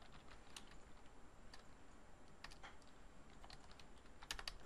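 Faint typing on a computer keyboard: scattered single keystrokes, with a quick run of several near the end.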